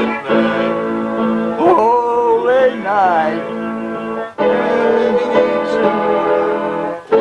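A keyboard plays slow, held chords of a Christmas carol, changing chord about four seconds in. A voice sings a wavering line along with it in the middle.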